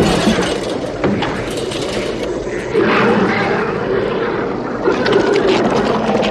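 Film creature sound effects of the dog-Thing mid-transformation: growling and screeching over a dense, rough noise. It grows louder about three seconds in.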